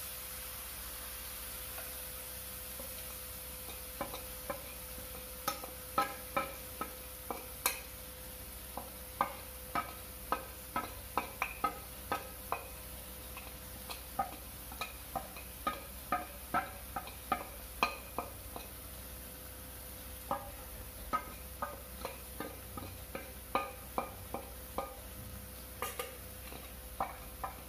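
Onions, chillies and spices sizzling in a frying pan. From about four seconds in, a long run of short, sharp ringing taps sounds at irregular spacing over the sizzle.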